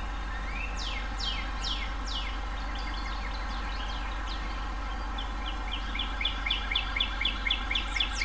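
Songbirds singing: a few quick downward-sliding whistles, then from about five seconds in a fast run of short repeated notes, about four or five a second, over a steady low hum.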